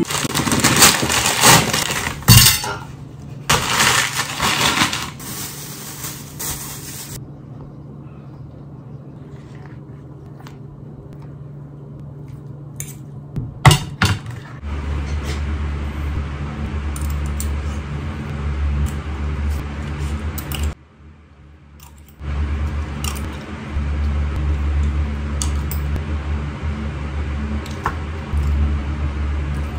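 Keyboard and mouse clicking, then the light clinks and scrapes of a fork and spoon on a plate. A steady low hum comes in about halfway through.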